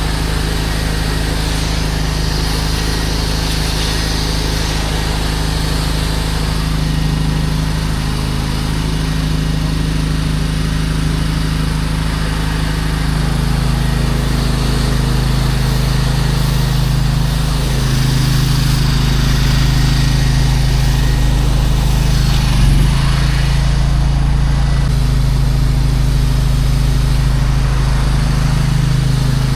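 Pressure washer's small gas engine running steadily, its pitch shifting slightly now and then, with a short knock near the end.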